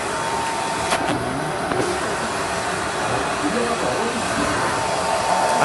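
Handheld hair dryer blowing on wet hair: a steady rush of air with a thin, steady motor whine.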